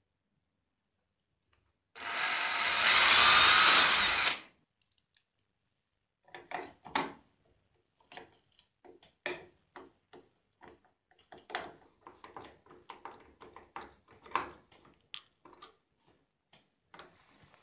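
Cordless drill boring a screw hole through a plastic faceplate into a wooden fascia, running for about two and a half seconds a couple of seconds in. Then a hand screwdriver driving the fixing screws into the wood: a long run of short creaks and scrapes, one per turn of the screwdriver.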